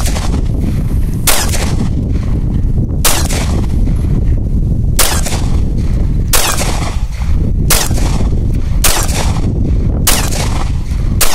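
A Ruger SR9c 9mm pistol fired one-handed, about eight single shots spaced a second or two apart, over a steady low rumble. With its 10-round magazine the trigger resets every shot and the pistol keeps firing without a problem.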